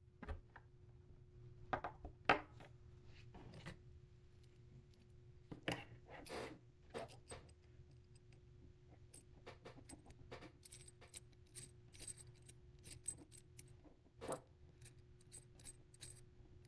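Faint, irregular clicks and light metallic taps, scattered and more frequent in the second half, over a faint steady hum.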